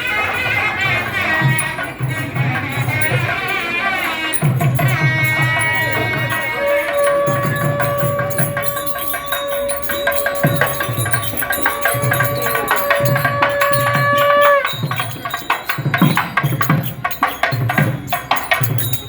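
Traditional temple music: drums beat steadily about once a second while a melody instrument holds one long note for several seconds in the middle, then moves on to shorter notes.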